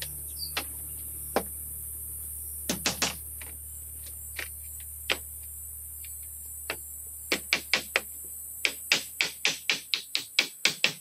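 Tool strikes on bamboo: scattered sharp knocks at first, then a quick run of about four strikes a second from about seven seconds in, over a steady high hiss.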